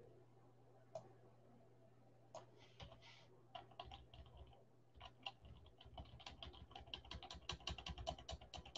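Faint typing on a computer keyboard: a few scattered keystrokes at first, then a quick, steady run of keys from about five seconds in.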